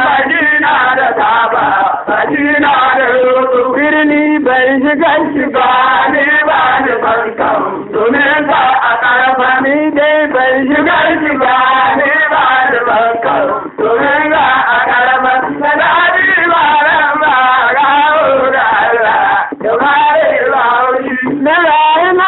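A man singing a Hausa traditional song in a chanting style, the melody rising and falling in long phrases with short breaks between them.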